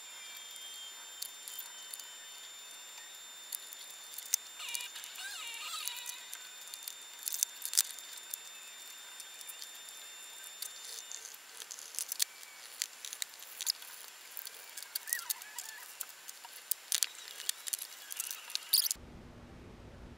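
Sped-up sound of a subwoofer being reassembled by hand: quick irregular clicks and knocks of screws, panels and tools, with a few short high squeaks. A thin high whine runs under it and stops about halfway.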